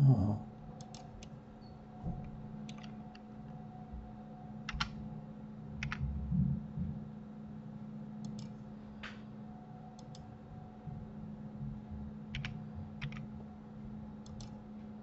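Scattered single clicks of a computer keyboard and mouse, one at a time with pauses between them, over a low steady hum. A thump right at the start is the loudest sound.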